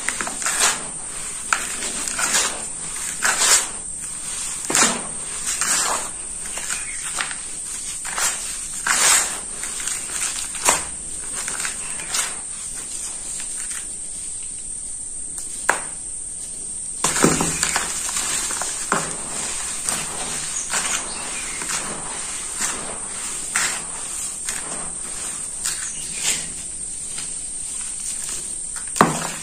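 Hands squeezing, crumbling and dropping dry sand-cement powder in a pan, a run of soft gritty crunches and pours, quieter for a few seconds around the middle. A steady high-pitched whine sits behind it.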